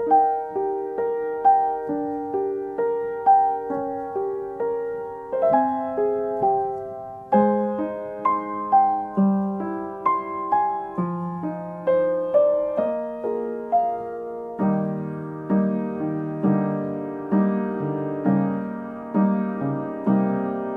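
Background piano music: a melody of evenly paced notes over chords, growing fuller with lower notes from about two-thirds of the way in.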